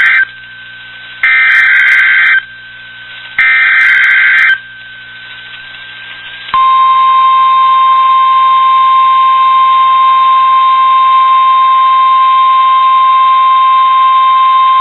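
NOAA Weather Radio SAME alert header: the tail of one screeching digital data burst, then two more about a second apart, the last ending about four and a half seconds in. About two seconds later the steady 1050 Hz warning alarm tone starts. It is the signal of a weekly test of the alert system.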